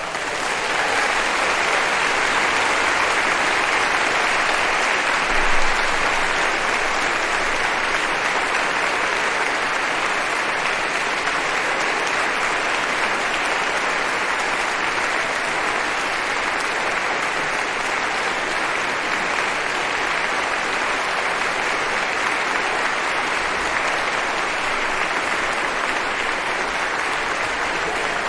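Crowd applause: many people clapping steadily and densely, rising quickly at the start and holding even throughout, with a brief louder swell about five and a half seconds in.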